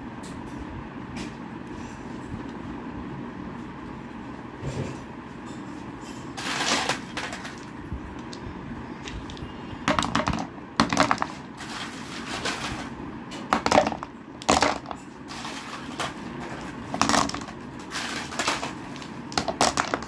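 Smooth pebbles being set one at a time into a wooden planter box, a series of separate knocks and clacks of stone on wood from about six seconds in, over a steady low hum.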